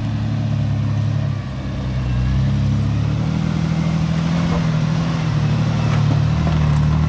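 Toyota Land Cruiser Prado 120's engine running under load while the four-wheel drive is driven over rough off-road ground. The engine note eases off about a second and a half in, then picks up again and holds steady.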